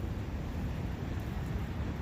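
Steady forest wind noise with a brook running, an even rushing sound heaviest in a low rumble.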